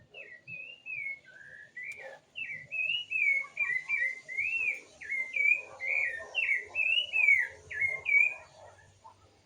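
A songbird singing a rapid, continuous run of slurred whistled notes that rise and fall, getting louder about two and a half seconds in.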